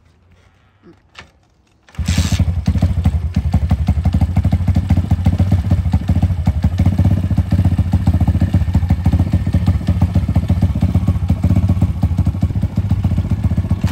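Stomp 140 pit bike's 140cc single-cylinder four-stroke engine coming in suddenly about two seconds in, then running steadily at idle. It is being warmed for about 30 seconds so the oil flows out more easily for an oil change.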